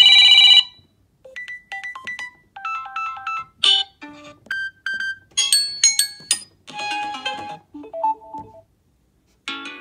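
A loud buzzing beep stops about half a second in, followed by a ringtone-style electronic melody of short, bright notes played in phrases with brief pauses.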